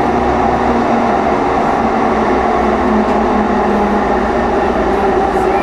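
Interior running noise of a light rail transit car: a steady rumble with several constant humming tones.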